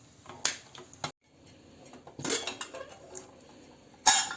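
Metal cookware and utensils clinking and clattering: two sharp clinks in the first second, a scraping clatter a little after two seconds, and a loud clank near the end.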